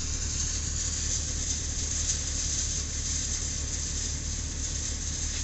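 Tractor-driven grain thresher running steadily at threshing work: a constant low drone with a dense, even hiss over it, not changing.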